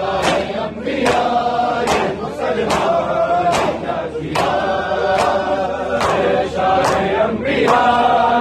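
A large crowd of men chanting a noha in unison, keeping time with hands slapping bare chests (matam) about once every 0.8 seconds.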